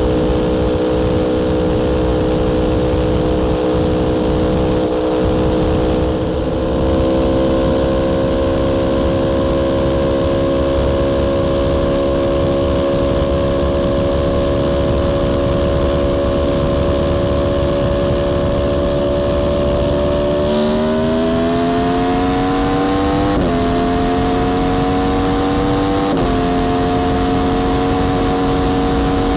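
Aprilia Tuono V4 R's V4 engine running at highway speed, steady at first, then accelerating hard about two-thirds through, its note climbing and dropping twice at upshifts. A low rushing noise runs underneath.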